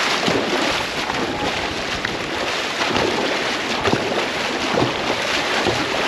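Dragon boat under way with its crew paddling: a steady rush of water along the hull and paddle blades striking the water with each stroke, about once a second, with wind noise on the microphone.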